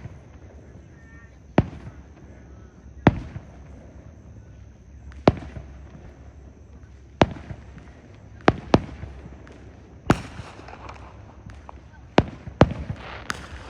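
Aerial fireworks shells bursting: about ten sharp booms, one to two seconds apart and sometimes in quick pairs. A crackling hiss follows two of the bursts, about ten seconds in and again near the end.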